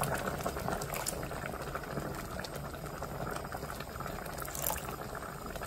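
Doenjang-based mallow and rice porridge boiling in a glass pot, bubbling steadily with many small pops. Water is poured in from a measuring cup near the start.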